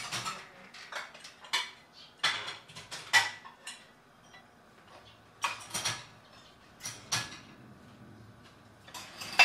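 White ceramic bowls and plates clinking against each other and a stainless-steel wire dish rack as they are set in, making a dozen or so sharp, irregular clinks and knocks with short quiet gaps between.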